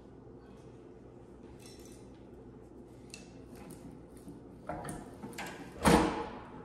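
Light metal clinks and taps, then a few sharper knocks near the end, the loudest just before it ends, as a direct-drive furnace blower motor is lowered into its sheet-metal blower housing and squirrel cage wheel.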